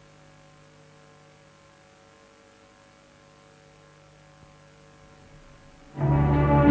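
Faint steady hum from the old broadcast recording's soundtrack. About six seconds in, loud music with sustained chords starts suddenly: the channel's ident music.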